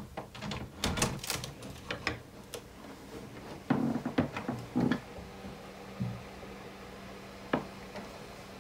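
Knocks, clicks and rattles of things being handled at a wooden cupboard, with a few heavier thuds in the middle and one sharp click near the end.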